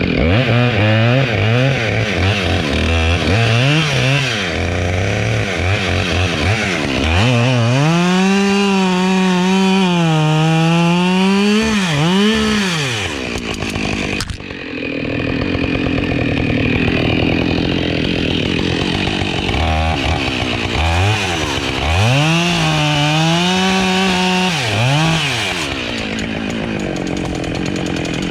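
Chainsaw revving in short bursts, then held at full throttle through two long cuts, its pitch sagging and wavering under load and dropping back between cuts.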